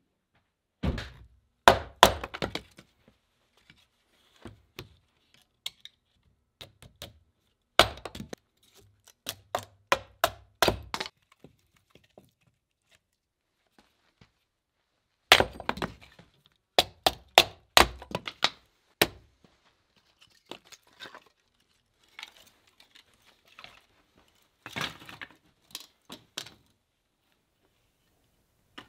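Bursts of sharp knocks and cracks from hard objects being handled, struck or snapped, in three loud clusters with fainter ones near the end.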